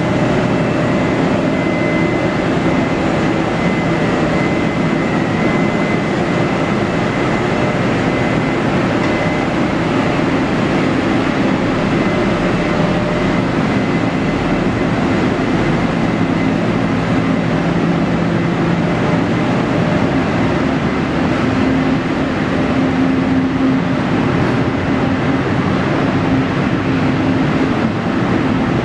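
A TRA E200-class (GE E42C) electric locomotive hauling a Chu-Kuang Express train pulls out of an underground station platform. A high whine from the locomotive fades over the first few seconds as it draws away. Then comes the steady, loud rolling of the passenger coaches' wheels on the rails as they pass, gathering speed.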